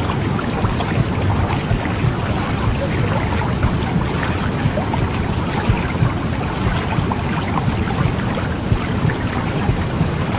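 Womb sound for soothing a baby: a steady, deep rumbling whoosh with a fine crackling texture running through it.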